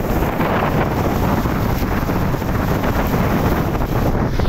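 Steady wind buffeting the microphone, over the splashing and lapping of wind-driven waves on a dam reservoir.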